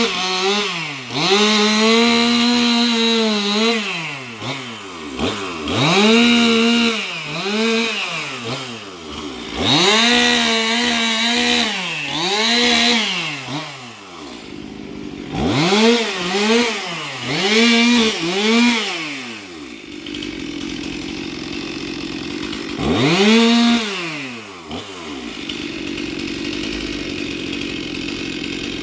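Two-stroke chainsaw revved up and let back down to idle again and again while cutting branches. Near the end it settles to a steady idle, with one more rev in between.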